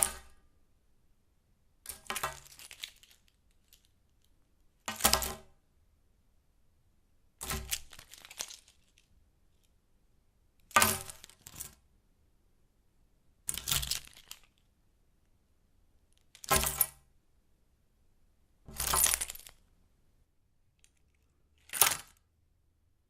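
A car key and its ring set down on and picked up from a hard tabletop over and over, each one a short metallic clink and jingle, about eight times at intervals of two to three seconds.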